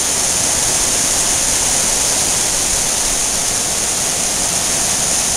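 Heavy rain from a hurricane's outer band pouring down steadily, a dense, even hiss with no let-up.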